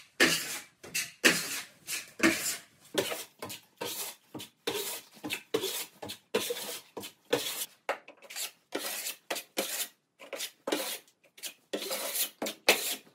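A 300 mm steel putty knife scraping finishing putty across a drywall wall in short, quick strokes, about two a second.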